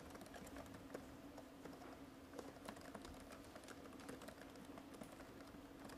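Faint typing on a laptop keyboard: many quick, light, irregular key clicks over a low steady hum.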